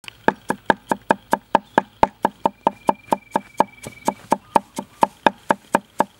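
Cleaver chopping garlic cloves on a thick round wooden chopping block: rapid, even knocks, about four to five a second.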